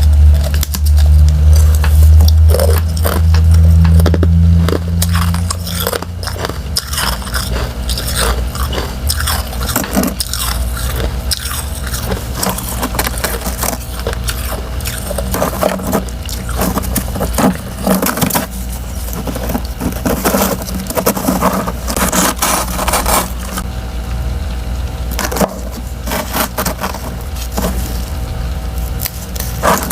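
Crunchy freezer frost chunks with a powdery frost layer crunching and crackling in quick, irregular clicks. A loud low rumble sits under the crunching for the first six seconds or so.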